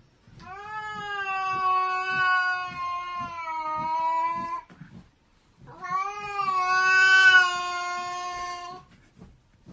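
Domestic cat yowling: two long, drawn-out calls of steady pitch, each lasting about three to four seconds, with a brief pause between them, typical of an agitated cat.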